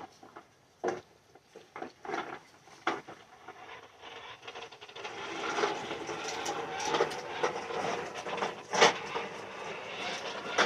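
A child's toy bubble lawnmower being pushed. Scattered plastic clicks and knocks come first, and from about halfway a continuous clattering rattle sets in, with one louder knock near the end.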